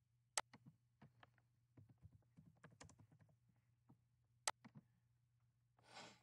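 Faint computer keyboard typing: a quick run of keystrokes, with a single sharper click before it and another about a second after it.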